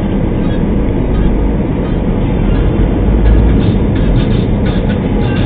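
Steady rumble of a car driving, heard from inside the cabin: engine and tyre noise on the road, with deep low rumble and no distinct events.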